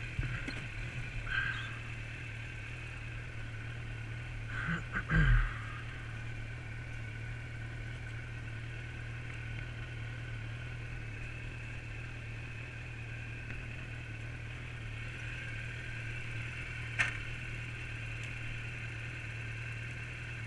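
Motorcycle engine idling steadily. A few knocks and rustles about five seconds in, and a single sharp click near the end.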